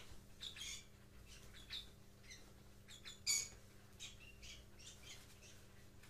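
Fischer's lovebirds giving short, scattered high chirps, with one louder squawk a little after three seconds in.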